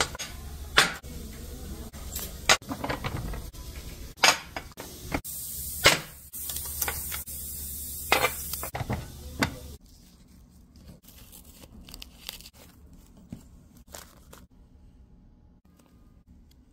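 Hand work on fabric flower parts at a workbench: a series of sharp knocks and taps at irregular spacing, with a high hiss of spray for about three seconds near the middle, then quieter small clicks and rustles of fabric.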